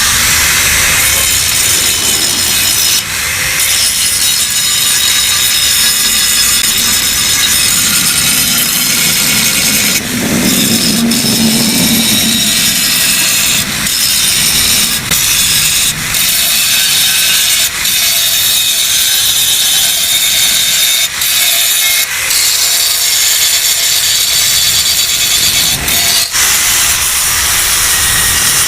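Power tool, most likely an angle grinder, cutting into the steel of a Yamaha RX-King exhaust muffler as it is opened up for reworking. Loud, steady grinding with short breaks every few seconds as the tool eases off the metal.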